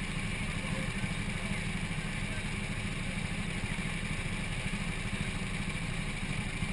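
Go-kart engine idling steadily, a low, rapid firing with no revving.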